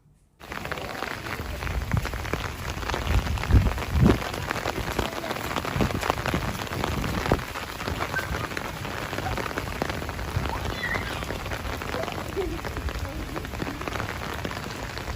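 Steady rain falling, a dense hiss of many drops pattering on a surface, with a few dull low thumps about three to four seconds in.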